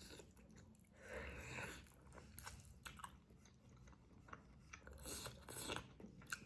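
A person chewing chicken and gravy rice close to the microphone: irregular small mouth clicks and chewing noises, busiest about a second in and again around five seconds in.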